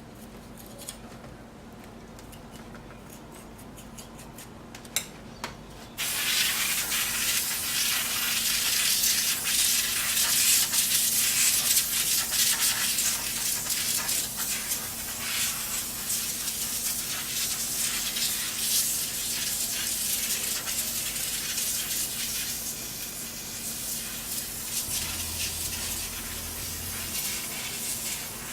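Computer case fans switching on and running at speed: a quiet low hum with a few small clicks, then about six seconds in a sudden, steady rush of fan air noise. One fan has a little noise to it and is due for replacement.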